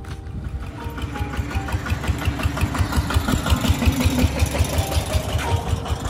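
An engine running with a fast, even chugging beat, growing louder around the middle.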